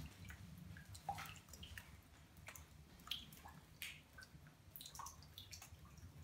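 Water dripping, single drops falling at irregular intervals with short, faint plinks.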